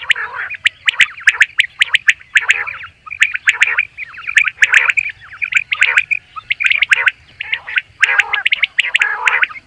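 Common quail calling: loud, dense bursts of calls laced with sharp clicks, repeating about one to two times a second without a break.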